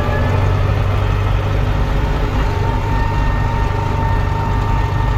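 Same Argon 80 tractor's diesel engine running steadily with a deep, even rumble; a thin steady whine comes in about halfway through.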